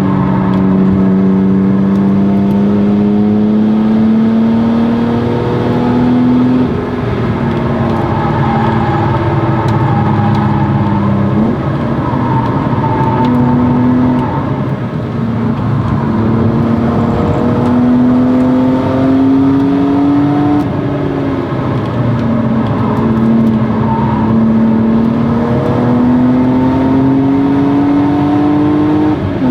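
1997 BMW E36 M3's 3.2-litre straight-six with a Stromung cat-back exhaust, driven hard on a race track. The engine note climbs steadily and then drops sharply every few seconds as it goes through gear changes and lifts for corners.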